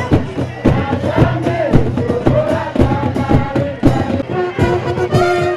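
A large crowd singing together in chorus over steady drumbeats, with a held note coming in near the end.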